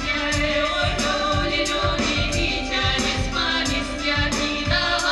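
Female vocal trio singing a Russian folk song in harmony, accompanied by electric guitar and keyboard with a steady beat.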